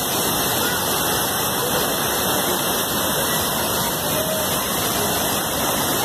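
Waterfall crashing into its pool: a loud, steady rush of falling water.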